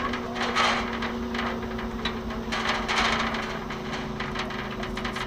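Steady engine hum of a custom airsoft vehicle built on a 1989 Toyota 4Runner, with scattered sharp clicks and knocks over it and two brief noisy swells, about half a second in and around three seconds in.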